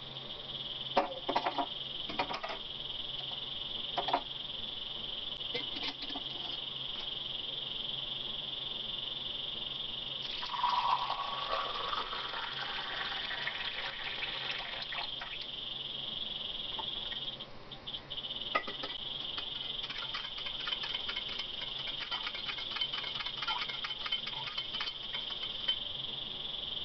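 A few clinks of steel utensils near the start. About ten seconds in, milk tea is poured from a steel pan into a small steel tumbler, a splashing pour of a few seconds. From about two-thirds of the way through, a spoon stirs in the steel tumbler with rapid light clinks, all over a steady high-pitched drone in the background.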